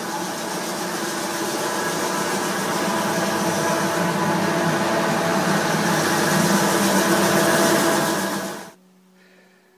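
Floor grinding machine running steadily with a motor hum, its diamond pads wet-grinding a marble floor; the sound cuts off suddenly near the end.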